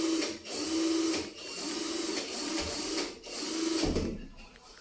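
Hand-held power tool worked against a gypsum ceiling, run in about six short bursts with brief breaks, each a steady motor whine over a rush of higher noise; it stops about four seconds in.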